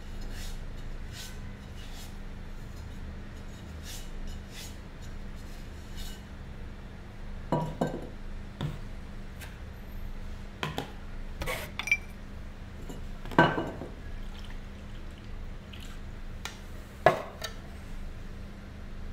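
Handling sounds of an unglazed ceramic lamp body being sponged with water: water dripping and sloshing in a plastic bowl, and light knocks of the ceramic piece set down on the stone countertop, the loudest about halfway through and near the end.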